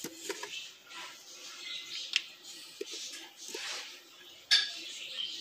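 Hard chunks of piloncillo being set onto squash pieces in a metal pot: a few short sharp clicks and knocks, the loudest about four and a half seconds in.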